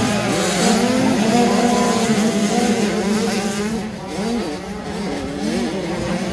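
Several 85cc two-stroke motocross bikes racing on a dirt track, their engines revving up and down in pitch as the riders accelerate and go over jumps; a little quieter from about four seconds in.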